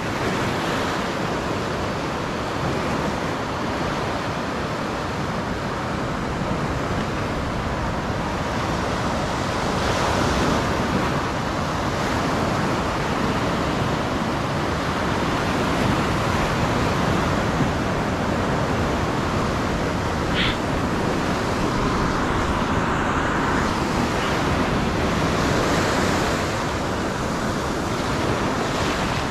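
Sea surf washing steadily against the shore, with wind.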